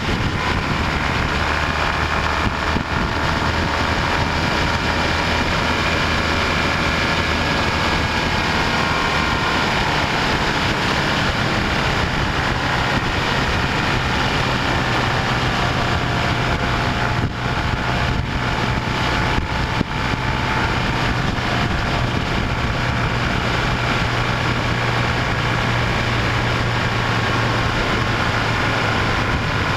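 Steady vehicle engine noise with a low hum, unbroken throughout.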